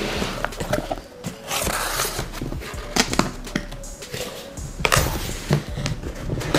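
Cardboard boxes being handled on a workbench: an inner box sliding out of its outer shipping carton, with scraping rustles and a few sharp knocks.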